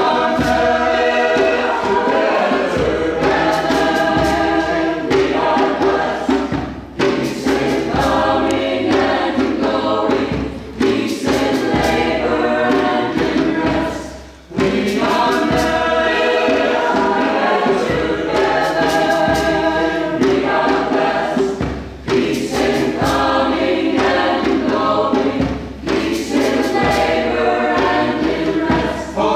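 Mixed choir of men's and women's voices singing together live, phrase after phrase, with short breaks between phrases; the longest break falls about halfway through.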